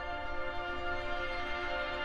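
Instrumental music played back through a pair of Monitor Audio Platinum 200 G3 loudspeakers, picked up by microphones in the room. A sustained chord is held steady throughout, with a soft low bass underneath.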